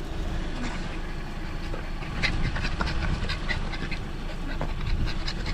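A dog panting, with scattered light clicks, over a steady low background rumble.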